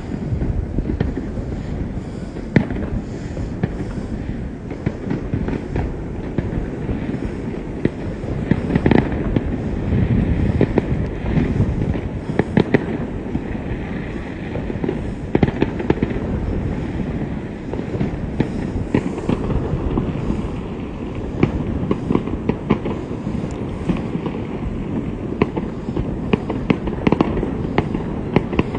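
Fireworks display going off in a continuous barrage: many sharp bangs and crackles over a steady low rumble, swelling louder in stretches.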